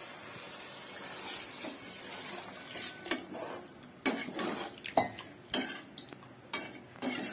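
Water poured from a steel bowl into chicken masala in an aluminium pot, then a steel slotted ladle stirring the liquid and knocking against the pot's rim and sides several times.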